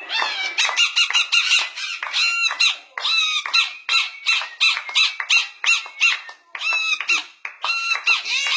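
Golden conure (golden parakeet) calling in a run of short, shrill squawks, about two to three a second in a steady rhythm, each call bending up and then down in pitch.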